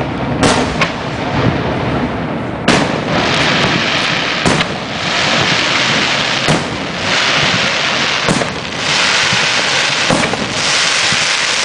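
Aerial firework shells bursting: about seven sharp bangs, a second or two apart, with a dense rain-like hiss filling the gaps from about three seconds in.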